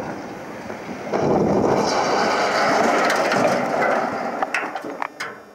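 Tall brick industrial chimney, felled by a demolition blast, crashing to the ground: a loud rumbling crash starting about a second in and lasting about three seconds, then a few sharp cracks of falling debris as it dies away.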